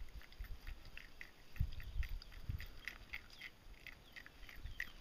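A warthog piglet nosing and mouthing a dog collar's metal chain links: low snuffling thumps about one and a half to two and a half seconds in, over a run of short, light clinks several times a second.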